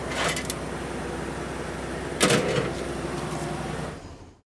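A few light clicks, then a single sharp knock about two seconds in, over a steady background hum; the sound fades out near the end.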